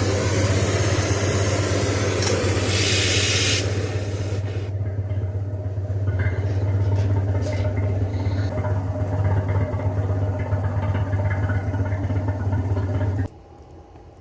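A machine running with a steady low hum and hiss. The brightest hiss fades about four and a half seconds in, and the machine cuts off suddenly near the end.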